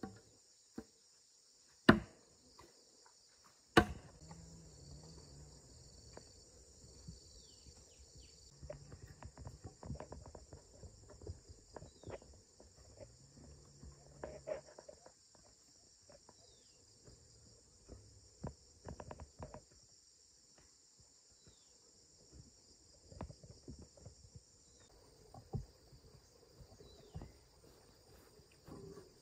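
Two sharp knocks of bamboo poles striking each other, about two and four seconds in, then scattered footsteps and crackling on a leaf-strewn dirt path, over a steady high chirring of insects.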